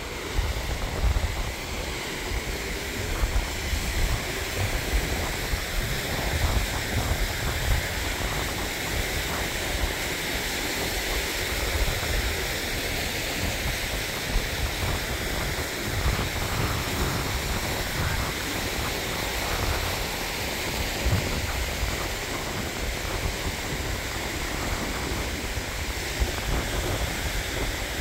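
Mountain stream rushing over boulders, a steady hiss of water, with wind buffeting the microphone in low, gusty rumbles.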